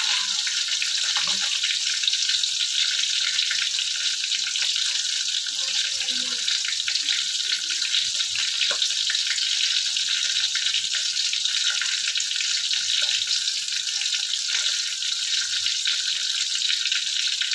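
A red snapper head frying in hot oil in a wok: a steady, dense sizzle of fine crackles.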